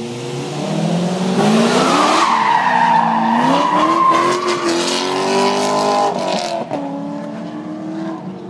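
Chevrolet Corvette Z06's V8 revving up and down as the car drifts around a skidpad, its tyres squealing loudest for several seconds in the middle. The engine note keeps rising and falling, and the squeal dies away near the end, leaving the engine running more quietly.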